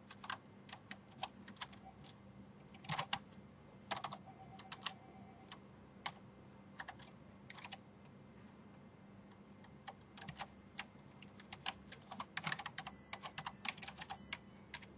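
Typing on a computer keyboard: faint key clicks in irregular bursts, with short pauses between them.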